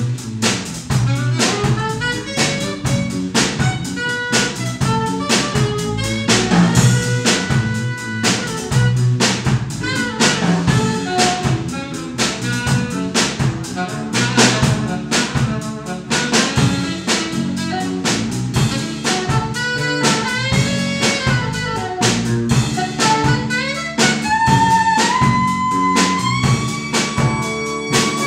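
Live jazz band of alto saxophone, trumpet, keyboard, bass guitar and drums playing over a steady drum groove. Near the end a held melody line climbs in steps.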